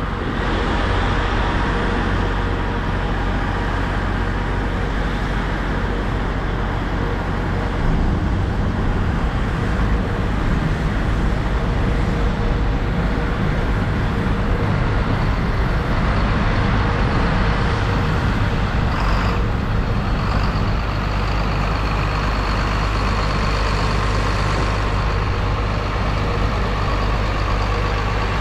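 Farm tractor's diesel engine running steadily at constant speed, a low, unchanging hum with a steady tone above it.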